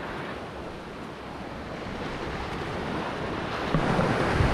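Small waves washing onto a sandy beach, with wind buffeting the microphone that grows stronger about three and a half seconds in.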